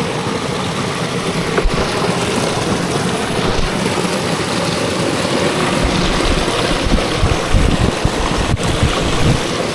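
A waterfall's falling water, a steady rushing noise, with a few low bumps of wind or handling on the microphone in the second half.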